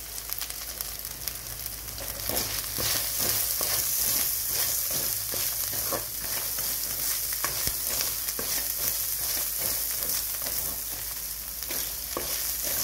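Chopped onion sizzling in hot oil with peanuts and spices in a metal kadhai, stirred with a steel ladle that scrapes and clicks against the pan. The sizzle grows louder about two seconds in.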